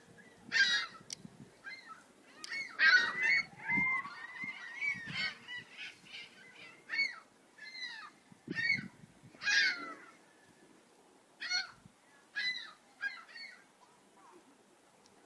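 Seagulls calling in a run of short, repeated cries that come in clusters and grow sparser near the end.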